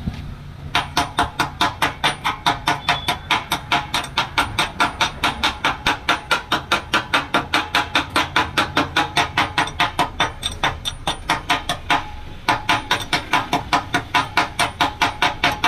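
Rapid, even metal-on-metal tapping, about four strikes a second, as a chipping hammer knocks slag off a fresh weld bead on a Tata 4018 truck's steel chassis rail. The tapping stops briefly about twelve seconds in, then resumes.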